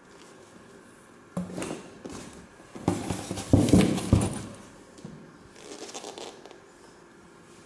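Used winter boots being rummaged through in a cardboard box: leather and rubber rubbing and knocking against each other and the cardboard. The handling is loudest about three to four seconds in, with a few sharp knocks.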